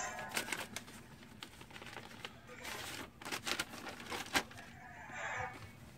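Paper being unfolded: soft rustling and crinkling, with scattered small crackles.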